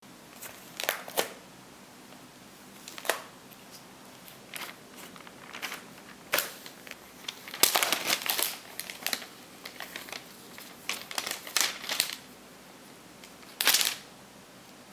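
Magazine paper crinkling and rustling in short, irregular bursts, loudest about eight seconds in and again near the end.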